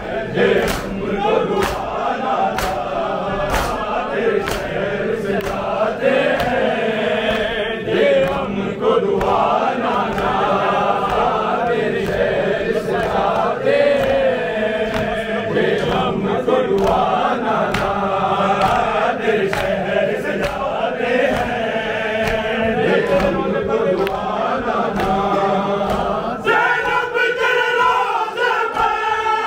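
A crowd of men chanting a Shia noha in unison, with sharp slaps of hands on bare chests (matam) keeping a steady beat under the voices.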